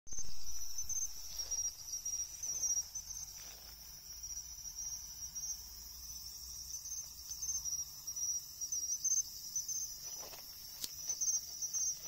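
Crickets calling in the grass, pine crickets (Xenogryllus marmoratus) among them: a steady high ringing with short chirps repeating on top of it. A few faint rustles and one sharp click near the end.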